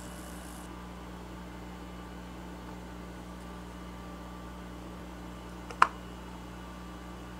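Steady low hum with a faint hiss. Near six seconds in comes one sharp, short clink, the loudest sound: a tiny shrimp held in the fingers knocks against a small ceramic bowl of beaten egg as it is dipped. A faint high sizzle of frying oil fades out within the first second.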